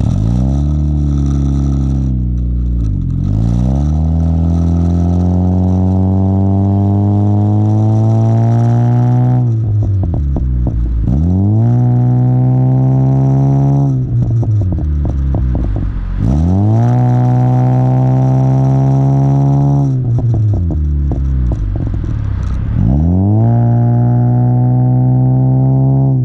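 Honda Civic with a Skunk2 Mega Power exhaust accelerating hard, its engine note climbing steadily and then dropping sharply four times at the gear changes. Each drop brings a short burst of crackling pops from the exhaust on lift-off.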